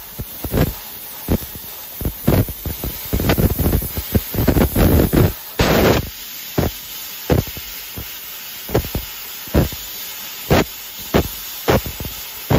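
Fiber laser cutting head cutting thin sheet metal: the assist gas hisses in short bursts, about one or two a second and one longer one near the middle, as each small part is pierced and cut, over a steady background noise.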